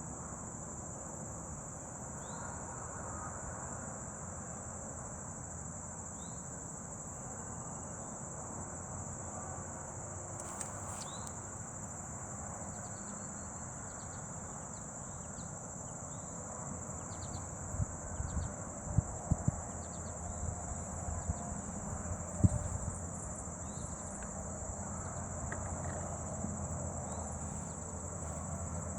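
Crickets trilling steadily and high-pitched, with short bird chirps over them and a low rumble underneath. A few sharp knocks come about two-thirds of the way through.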